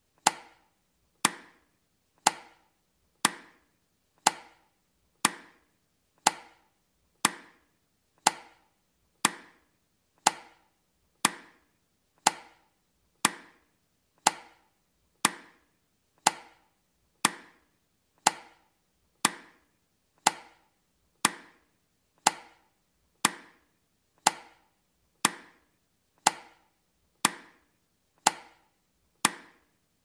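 Countdown timer's tick sound effect: a sharp, dry tick once a second, each dying away quickly, marking off each second of the count.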